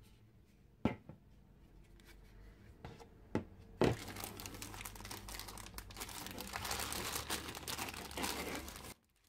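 A few knocks in the first four seconds, then a clear plastic packaging bag crinkling steadily for about five seconds as hands open it to take out a figure part. The crinkling cuts off suddenly near the end.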